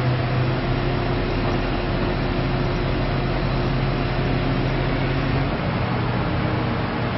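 An engine running steadily under a constant rushing noise; its low hum eases off about five and a half seconds in.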